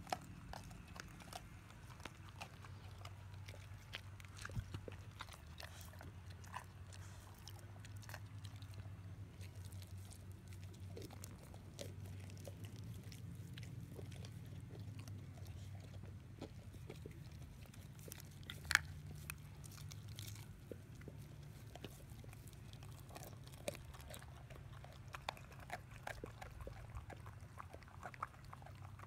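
Boxer-mix dogs gnawing and crunching raw salmon heads: wet chewing with a steady patter of small cracks as bone and cartilage give way, and one much louder crack about two-thirds of the way through.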